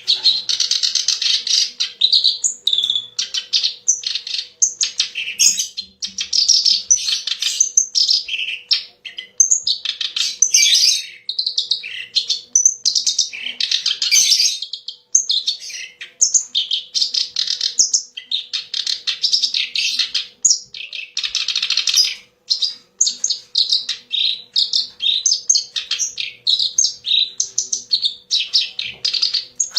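Kerak basi (reed warbler) singing a long, fast, chattering song of harsh, varied notes with only brief pauses.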